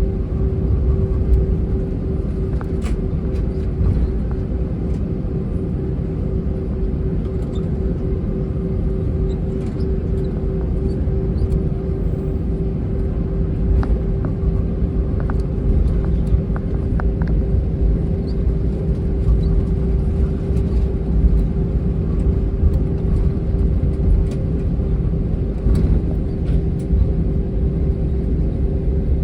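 Steady low rumble inside the cabin of an Airbus A321 whose IAE V2500 engines are at idle, with a constant hum over it and a few faint ticks.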